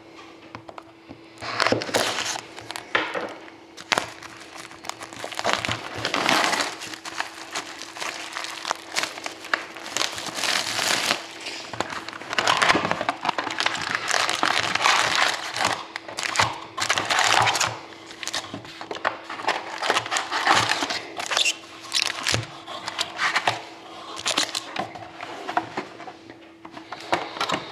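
Crinkling, crackling and rustling of plastic wrap and cardboard as a sealed box of trading cards is unwrapped and opened, then the foil card packs inside rustle as they are handled. The rustles come in irregular handfuls, with sharp crackles among them.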